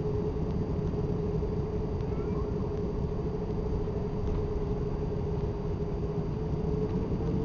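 Airbus A340-600's Rolls-Royce Trent 500 engines at taxi power, heard from inside the cabin over the wing: a steady engine whine over a dense low rumble.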